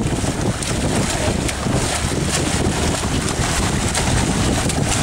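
Wind rushing across the microphone over choppy open sea, with water splashing from a swimmer's front-crawl strokes.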